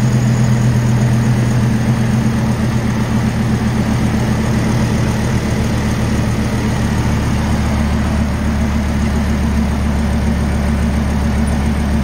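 Car engine idling steadily after a jump start from a cordless drill battery, its low idle note settling lower a few seconds in.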